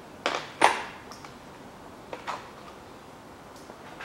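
A few sharp metallic clinks and knocks of a hand tool against the rider's bolts and body panel, the loudest about half a second in with a brief ring.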